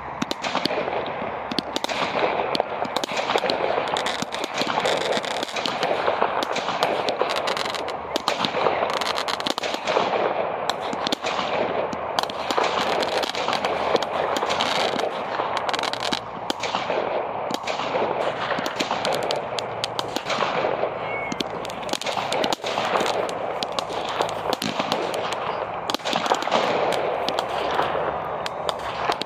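Aerial fireworks bursting in a dense, continuous run of bangs and crackle.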